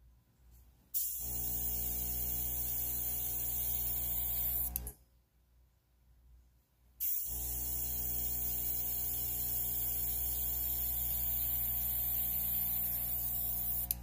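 An airbrush and its small air compressor running: the motor hums with steady air hissing from the airbrush nozzle as ink is blown across paper. It comes in two bursts, about four seconds starting a second in, then after a two-second pause again for about seven seconds, cutting off sharply near the end.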